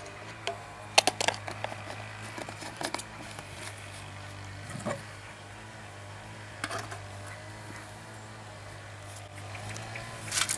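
Sparse light clicks and taps as a plastic funnel is lifted off a motorcycle fuel tank and the metal filler cap is fitted and screwed on, over a steady low hum.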